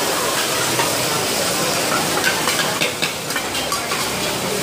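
Hoy tod (shellfish pancake) batter sizzling on a large flat griddle. Metal spatulas scrape and clink against the hot iron, with a few sharp taps past the middle.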